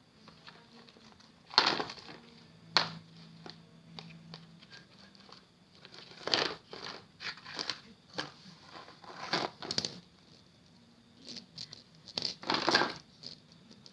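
Cats pawing and scuffling at a small object: irregular rustling, crinkly bursts, the loudest about a second and a half in and again near the end, over a faint steady hum.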